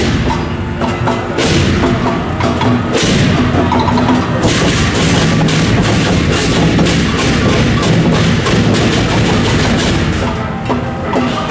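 Loud procession percussion music: drums beaten in a fast, dense rhythm, with ringing pitched tones held over the beat.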